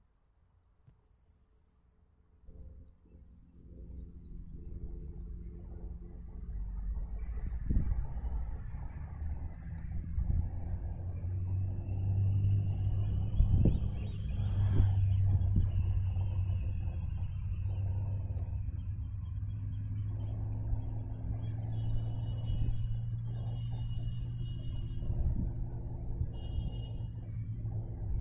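Small songbirds chirping and twittering throughout, over a low, steady engine drone that builds up a few seconds in, is loudest around the middle and stays on to the end.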